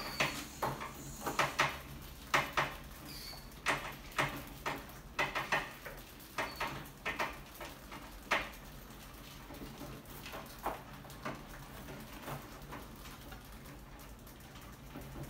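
Rats scrambling over the wire-mesh lid of a glass-tank rat trap: irregular clicks, taps and scratches of claws on wire and glass, busiest in the first half and thinning out later.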